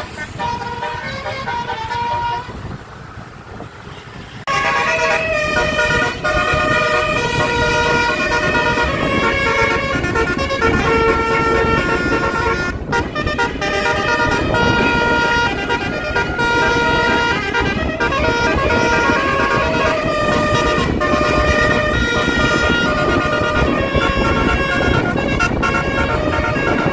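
Bus telolet horn: a multi-tone air horn playing a melody of held notes. It is faint at first and becomes loud and continuous from about four and a half seconds in.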